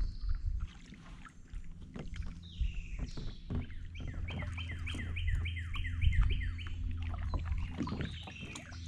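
Kayak paddle strokes dipping and splashing in shallow water, with occasional short knocks, over a steady low hum. A songbird calls several times, and about halfway through it sings a quick run of about ten falling notes, four or five a second.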